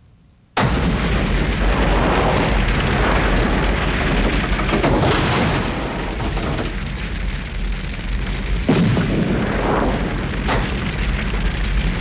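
Car wreck exploding and burning: a sudden loud blast about half a second in, then a continuous loud rumble of fire, with two more sharp bursts near the end.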